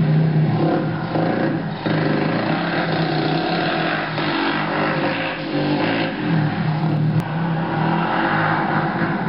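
ATV engine revving up and down as the quad is ridden past, its pitch rising and falling with the throttle.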